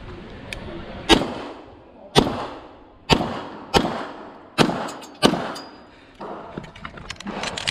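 Pistol shots from a competitor shooting an IPSC course of fire: six shots at uneven gaps of about half a second to a second, each with a short echo. Fainter clicks follow near the end.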